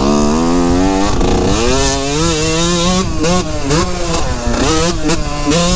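2003 Yamaha YZ125's 125 cc single-cylinder two-stroke engine revving while riding, its pitch climbing and dropping again and again as the bike accelerates and eases off.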